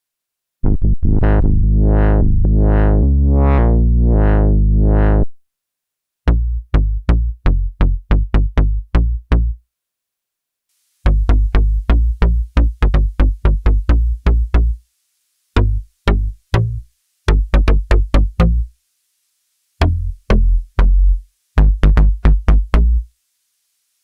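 Bass presets on Roland Cloud's JUNO-60 software synthesizer. First a held bass line whose filter swells open and shut about every three-quarters of a second. Then runs of short, staccato bass notes in phrases with brief pauses between, and a faint hiss over the later notes.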